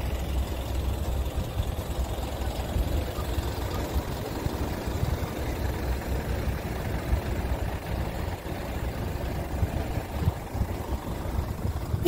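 Car engines running at low speed in slow traffic: a steady low rumble under general outdoor noise.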